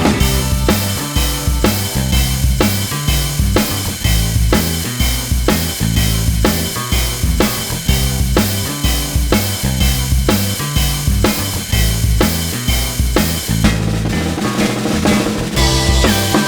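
Background music with a steady drum-kit beat and bass line.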